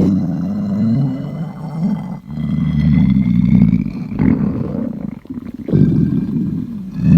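An empty stomach growling loudly from hunger: long, low rumbling growls that break off briefly about two seconds in and again around five seconds in.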